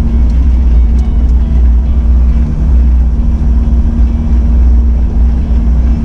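Four-wheel drive's engine and tyres droning steadily while driving slowly along a dirt track.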